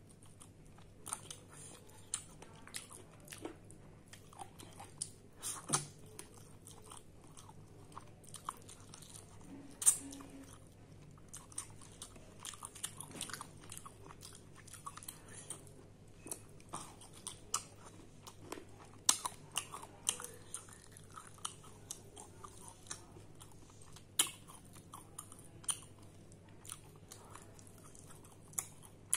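A person eating rice and curry with their fingers close to the microphone: steady chewing with many short, sharp clicks and crunches scattered through it, the loudest about ten seconds in.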